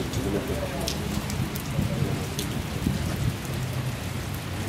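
Steady rain falling on wet paving, with scattered sharper drop ticks and a low rumble underneath.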